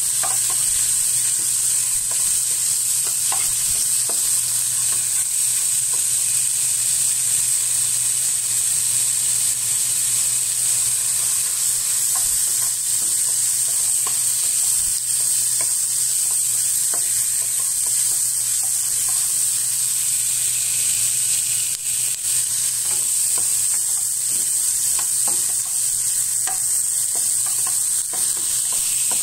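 Pieces of meat sizzling steadily in oil in a frying pan, with scattered light clicks and scrapes of a spatula stirring them against the pan.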